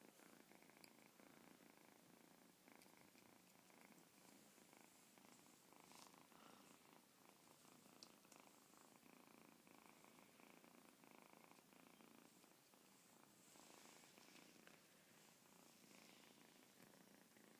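Red Persian kitten purring faintly and steadily, with a couple of light clicks.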